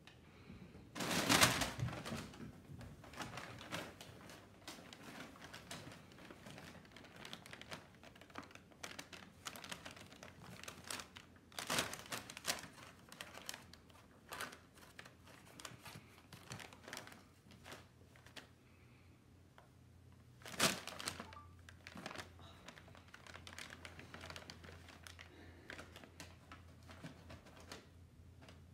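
Brown kraft packing paper crinkling and rustling in irregular crackles as cats move and pounce in it, with three louder bursts of crumpling.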